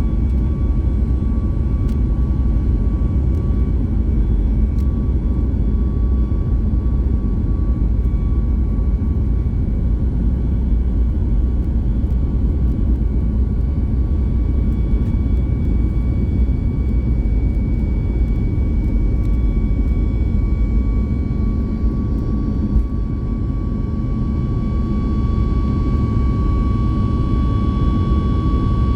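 Cabin noise inside a Boeing 737 MAX 8 airliner: the CFM LEAP-1B turbofan engines give a steady, heavy rumble with a thin, constant whine, and the whine grows a little louder near the end.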